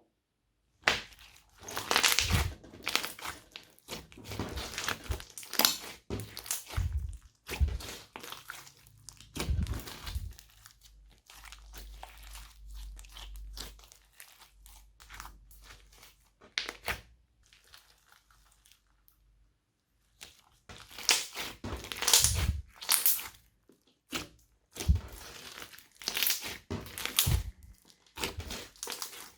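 Hands squishing, folding and stretching glossy slime loaded with mixed-in add-ins, making bursts of sticky crackling and popping. The bursts are broken by short pauses, one about a second in and another at about 19 to 20 seconds.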